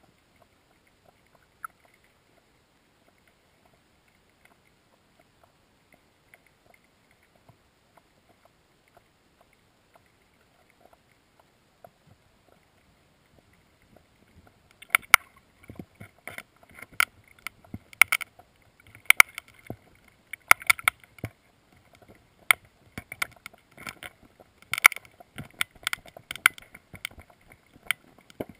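Irregular sharp knocks and clicks picked up underwater, starting about halfway through and at times coming several a second; before that only faint scattered ticks.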